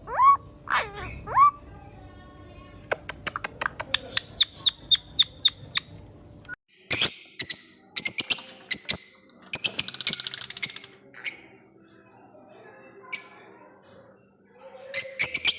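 A talking parrot gives short rising, speech-like calls, followed by a run of sharp clicks about four a second. After a sudden cut, parrots squawk and chatter shrilly in repeated clusters.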